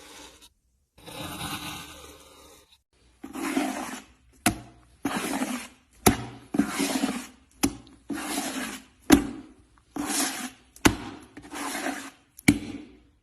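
Slime being squished and pressed by hand: short rubbing, squelching bursts, each followed by a sharp click or pop, repeating about every one and a half seconds.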